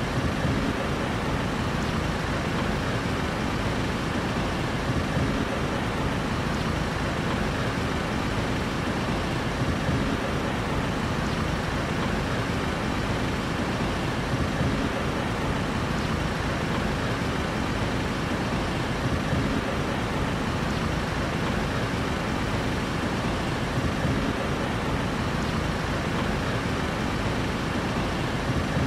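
Steady road traffic noise from a city street, an even wash of vehicle sound with no breaks or single standout events.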